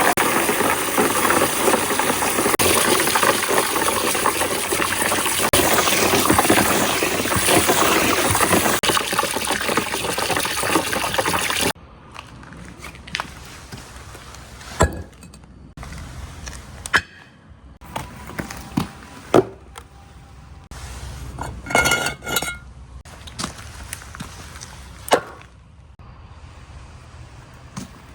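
Water rushing steadily down a marble-run track, which stops abruptly about twelve seconds in. After that, glass marbles roll along the track with scattered sharp clicks and a few short ringing clinks of glass on glass.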